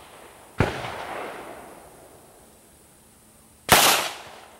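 Two shots from a .45-calibre handgun, about three seconds apart, each with a sharp crack and a fading echo.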